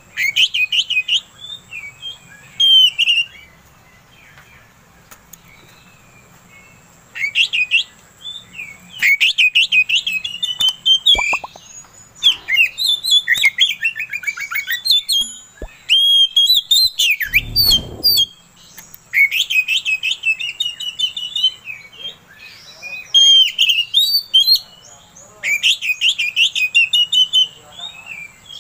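Oriental magpie-robin (kacer) singing loudly in bouts of rapid, varied whistles and chattering trills, with pauses of a few seconds between bouts. A short low thump comes about 17 seconds in.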